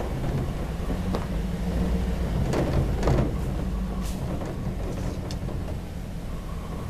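Vehicle engine and cabin noise at low speed: a steady low hum, with several short knocks and rattles.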